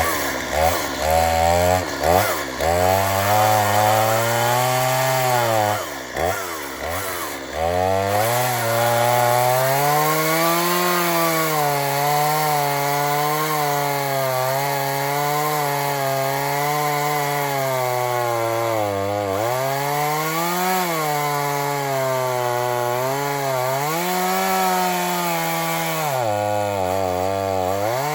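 Two-stroke gas chainsaw revved in quick blips, then cutting into a log. Its engine note sags and recovers under load, then holds a steady, slightly wavering pitch through the cut.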